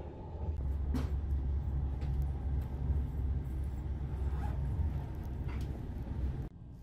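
Steady low rumble of a Railjet train running at speed, heard from inside a passenger coach, with a few sharp clicks; it cuts off suddenly near the end.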